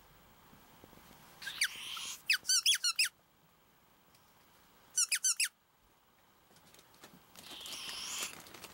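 Ferret making a threat call: a short hiss about a second and a half in, then rapid runs of high squeaks, a second run about five seconds in, and a longer hiss near the end.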